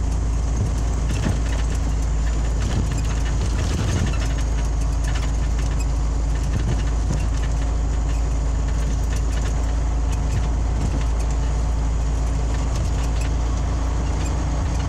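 Interior of a Scania OmniLink CL94UB city bus on the move: a steady low engine drone and road noise, with small ticks and rattles throughout.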